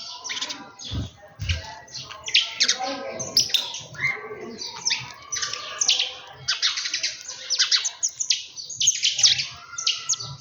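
A flock of small birds chirping busily, many short high calls overlapping without pause. Two brief low thuds come about a second in.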